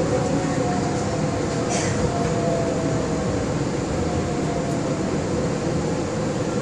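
Steady running noise of an Okinawa Yui Rail monorail, heard from inside the front car. A faint whine sinks slowly in pitch as the train slows into a station.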